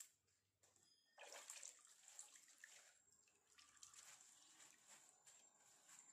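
Faint liquid swishing and dripping, starting about a second in, as a bundle of raw incense sticks is pushed into a bowl of perfume and worked around to soak them.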